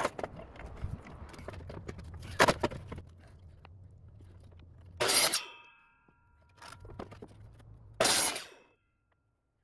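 Woodworking at a miter saw on concrete: three short, loud bursts about three seconds apart, the middle one followed by a brief ringing tone, with quieter knocks and scrapes between them as boards are set against the saw.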